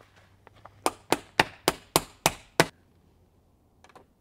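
Hammer blows on the greenhouse's metal frame: seven quick, sharp strikes at about three a second, which stop a little after halfway through.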